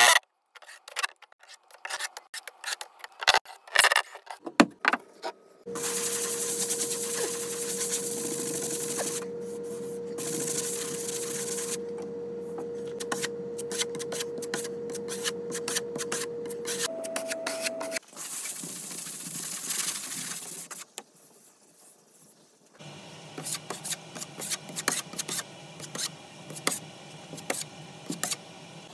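Hand tools scraping and tapping, with a steady hum of even pitch for about twelve seconds in the middle that steps up in pitch just before it stops.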